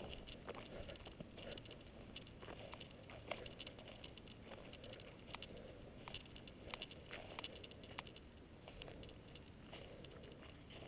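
Faint footsteps of a hiker walking along a forest trail: a quick, irregular run of soft clicks and scuffs.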